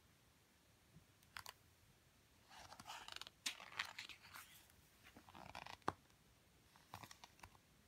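Faint rustling of a picture-book page being turned by hand, ending in a sharp paper snap as the page falls over, with a few light taps before and after.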